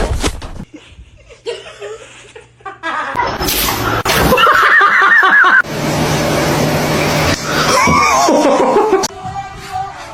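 Loud human laughter mixed with music, in several short segments that change abruptly.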